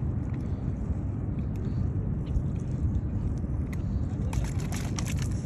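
Steady low outdoor rumble, with a quick run of clicks and handling noises about four seconds in.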